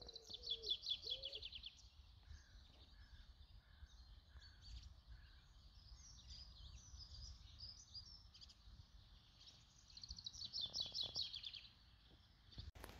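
Faint songbirds singing, with fast trilled phrases near the start and again about ten seconds in, and a few evenly repeated lower notes between them, over a steady low background rumble.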